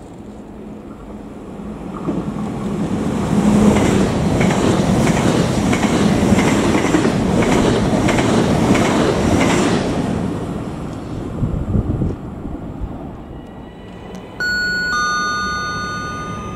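Trenitalia Pop (ETR104, Alstom Coradia Stream) electric multiple unit passing along a station platform: the rumble rises and then fades, with a regular run of wheel clicks over the rail joints at its loudest. Near the end a two-tone station public-address chime sounds.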